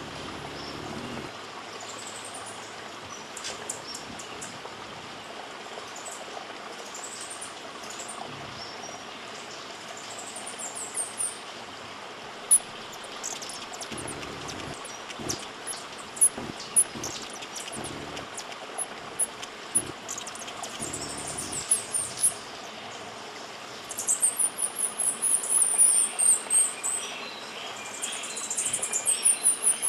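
Cloud-forest ambience: a steady rushing like running water under scattered high-pitched bird chirps and sharp ticks. In the last few seconds come fast runs of high, repeated, falling notes, the loudest sounds here.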